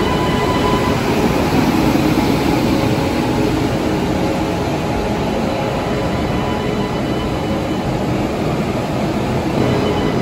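WAP-7 electric locomotive moving along the platform at low speed: a steady rumble of wheels on rail with a few faint steady tones, easing slightly after a few seconds as it draws away.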